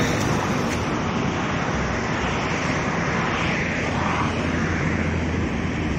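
Steady traffic noise beside a busy multi-lane road: a constant rumble of passing vehicles, swelling slightly midway.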